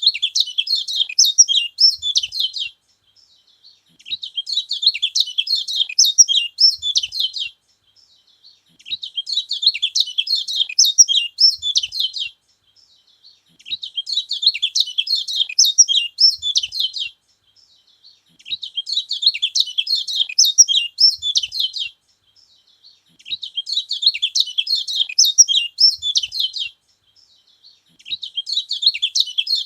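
Kecial kuning (a yellow white-eye) singing a fast, twittering, high-pitched song. The song comes in bouts of about three and a half seconds with roughly a second's pause between them, repeating at an even pace.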